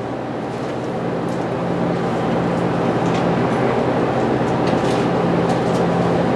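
Steady background hum and rush of room noise, slowly getting louder, with a few faint rustles as Bible pages are turned.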